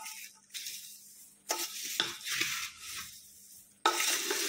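Dry roasted thin poha flakes, peanuts and roasted chana dal rustling as they are turned over with a spatula in a large metal pot, in about six separate stirring strokes with light clicks of the spatula against the pot; the loudest stroke comes near the end.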